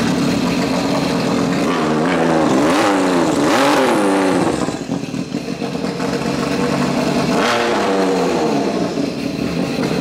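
Turbocharged Sea-Doo Spark three-cylinder engine running out of the water, revved up and let back down twice: the pitch climbs about two seconds in and again near eight seconds, then settles each time.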